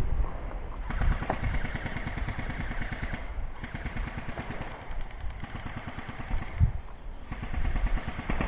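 Rustling and footsteps of a person moving on foot through woodland undergrowth, with a dull thump about two-thirds of the way through.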